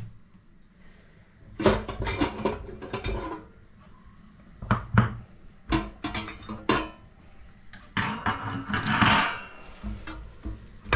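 Metal tongs clattering against pie dishes and metal shelf racks in an air fryer drawer as the pies are moved: a series of separate knocks and clinks, with a longer scrape about eight seconds in.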